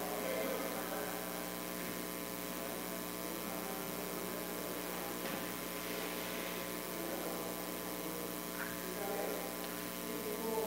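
Steady electrical mains hum with many overtones over a light hiss, unchanging throughout.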